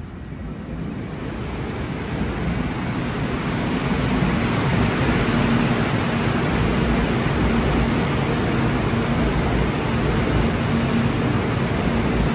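Seoul Subway Line 4 electric train pulling into the station: its running noise builds over the first few seconds, then holds steady with a low hum.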